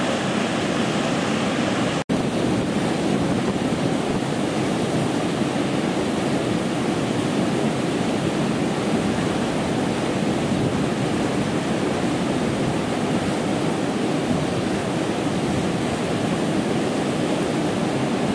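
Steady rush of the River Yeo in flood, churning and foaming over and below Limington Weir after heavy rain. The sound drops out for an instant about two seconds in.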